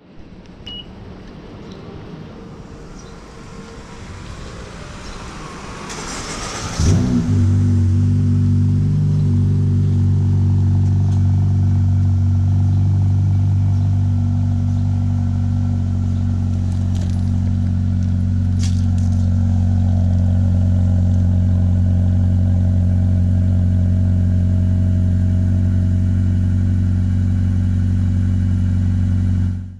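2019 Honda Civic Sport's K20C2 2.0-litre four-cylinder engine starting up about seven seconds in, then idling steadily through its exhaust.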